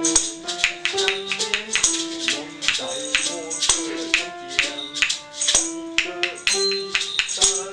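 Hand-shaken maracas and a small tambourine keeping a steady rhythm, under a melody of held notes that steps up and down in pitch.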